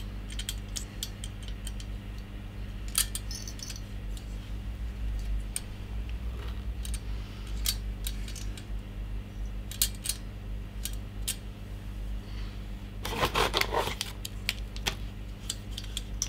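Light metallic clicks and rattles of a CPU cooler's aluminium heatsink and mounting bracket being handled and turned over, with a quick run of clicks about thirteen seconds in, over a steady low hum.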